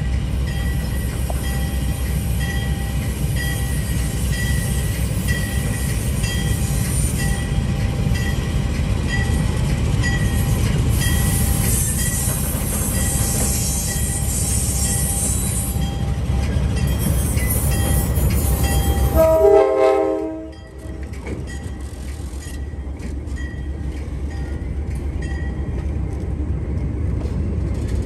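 Diesel locomotive 558 pulling away under power, its engine giving a heavy low rumble while a bell rings in a steady repeating pattern. About twenty seconds in the horn gives one short blast, the engine sound falls away, and the passenger coaches roll past with clicking wheels.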